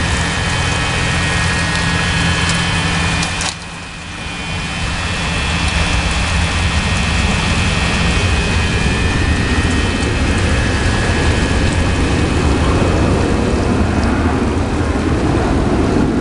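Motorboat engine running steadily with a low hum; it dips briefly a few seconds in, then grows louder from about six seconds on.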